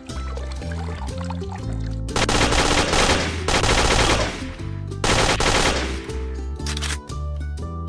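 Background music with a steady bass line, broken by loud bursts of rapid rattling clicks: one about two seconds in lasting about two seconds, another about five seconds in, and a short one near seven seconds.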